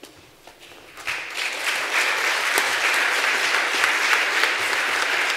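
Audience applauding: a few scattered claps at first, swelling into full, steady applause about a second in.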